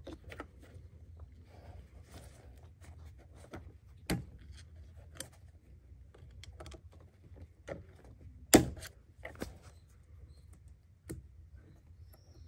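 Scattered clicks and knocks of hand work on parts around a diesel fuel filter in an engine bay, with a louder knock about four seconds in and the loudest about eight and a half seconds in.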